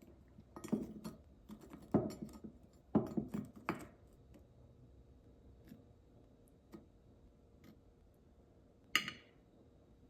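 Glassware and dishes being handled: a run of knocks and clinks in the first four seconds, a few light taps, then one sharp ringing glass clink about nine seconds in.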